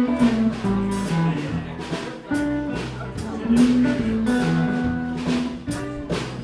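Blues band playing an instrumental passage, guitar lines over a steady drum beat.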